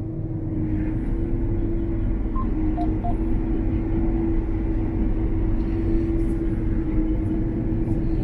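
Combine harvester's engine running steadily while the machine drives across the field, a constant drone with a steady hum over a low rumble.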